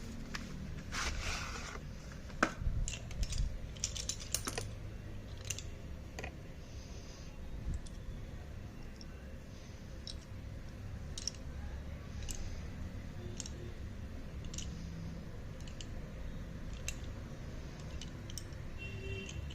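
Irregular light clicks and taps of mini slate pencils and their packaging being handled, with a small cluster of quicker clicks about a second to four seconds in.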